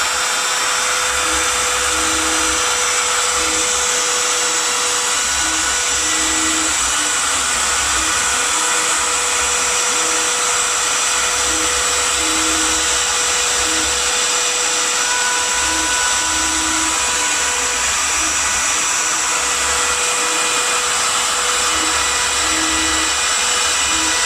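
Homemade CNC router cutting: the spindle runs steadily with a high whine and hiss, while the axis motors hum in short stretches that start, stop and glide in pitch every second or so as the tool moves along the cut.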